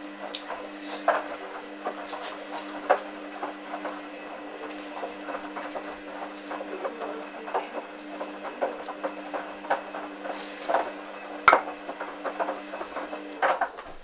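Hoover washing machine tumbling its drum in the rinse: water and suds sloshing with the laundry over a steady motor hum, with small irregular clicks and splashes and one sharp knock a little past two-thirds through. The hum stops shortly before the end as the drum comes to rest.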